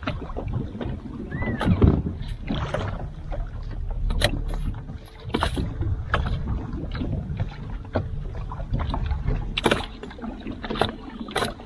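Wind on the microphone and water moving against a bass boat's hull, with scattered short splashes and knocks as a hooked smallmouth bass is worked beside the boat.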